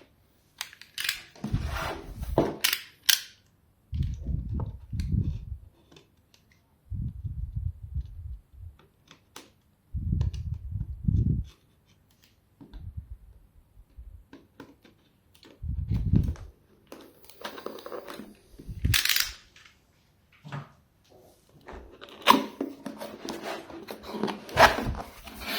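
Cardboard power-supply box being handled and opened: scattered knocks, clicks and scrapes, with short spells of low rumbling handling noise and some rustling.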